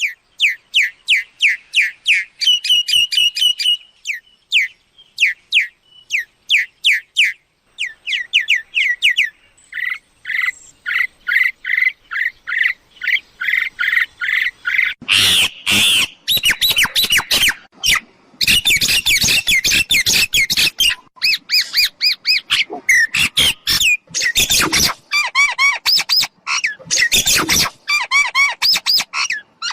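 Myna calls used as a decoy to lure wild mynas: rapid series of short, high, falling chirps, turning to harsh, noisy squawks about halfway through.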